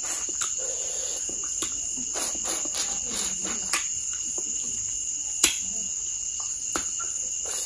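Steady high-pitched insect trilling carries on throughout, with scattered short clicks and taps over it. One sharper click comes about five and a half seconds in.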